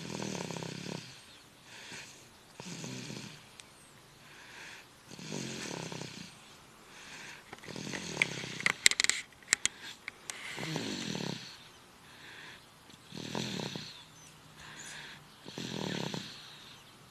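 A sleeping person snoring: a low snore about every two and a half seconds, with a breathy hiss of air between snores. About halfway through, a quick cluster of sharp clicks.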